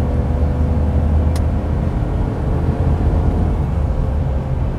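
2023 Ford F-150's 3.5L twin-turbo EcoBoost V6 pulling hard at full throttle while towing a heavy trailer, heard from inside the cab as a steady low drone mixed with road noise.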